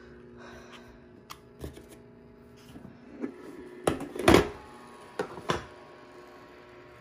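Plastic parts of a Magicfly Digital Mini egg incubator being handled: the clear plastic shell and white plastic mesh egg tray click and knock against each other. Scattered light clicks at first, then a loud rattling cluster of knocks about four seconds in and two more knocks a second later.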